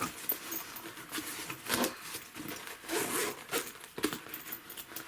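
Zipper on a fabric men's toiletry bag being slid open, with rustling and scraping as the bag is handled.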